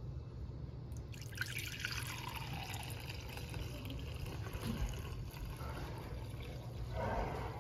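Turkey broth pouring from a stainless steel bowl into a glass measuring cup, a steady stream starting about a second in.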